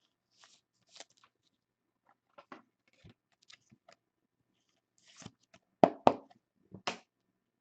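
Trading cards and plastic card holders being handled: scattered faint clicks and rustles, then a louder run of sharp clicks and slides about six to seven seconds in.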